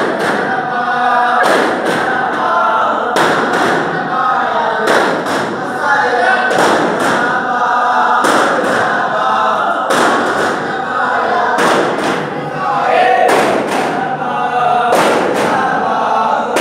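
Daff muttu: a group of men chanting together in unison while striking daff frame drums all at once, in a steady beat a little faster than one stroke a second.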